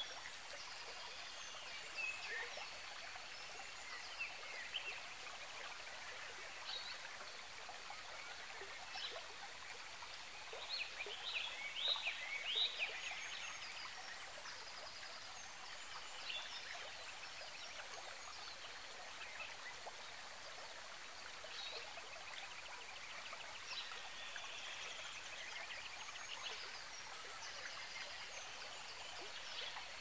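Forest ambience: a steady hiss of running water under scattered small-bird chirps and calls, busiest about twelve seconds in, with a rapid ticking trill near the end.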